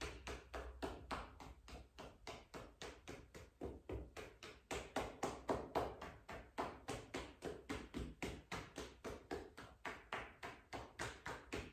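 Fists tapping rhythmically on the outside of the leg in meridian self-massage: a steady run of soft thuds, about four a second.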